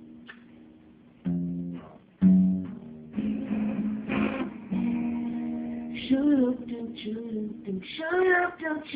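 Acoustic guitar strumming chords, a quiet lead-in that grows louder, with a singing voice coming in about six seconds in.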